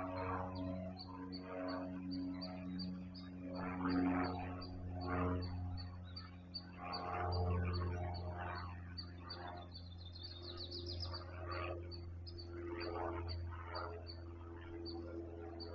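Wild birds calling: a steady string of short, high chirps about two or three a second, with a brief buzzy trill near the middle and lower, rougher calls repeating about once a second, over a steady low hum.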